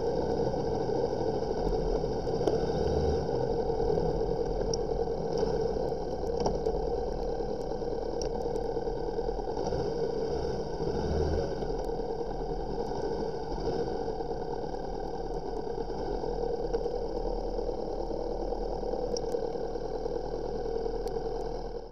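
Motorcycle running at low town speed, heard from a camera mounted on the bike: a steady engine and wind noise, with scattered faint ticks.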